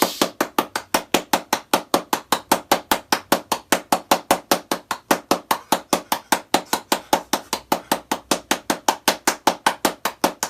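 Rapid, even knocking or tapping, about five hard strikes a second, keeping a steady beat.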